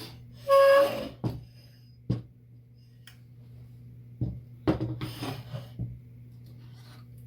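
Small metal parts and tools clinking and rattling on a work surface: one loud clink that rings briefly about half a second in, a few single clicks, then a quick rattling run of clicks around five seconds in. A steady low hum sits underneath.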